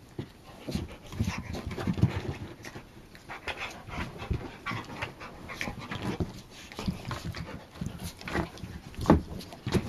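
Dogs panting and scuffling as they roll and wrestle in play, with a sharp knock about nine seconds in.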